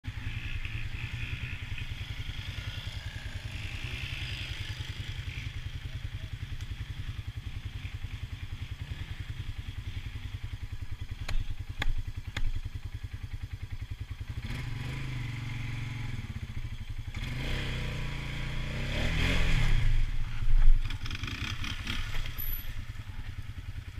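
ATV engine running steadily while riding over rough ground, with a few sharp knocks about halfway through. Near the end the engine revs up and back down, and that is the loudest part.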